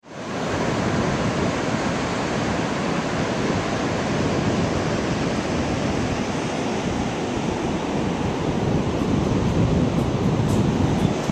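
Steady rushing of wind and ocean surf, fading in over the first half second.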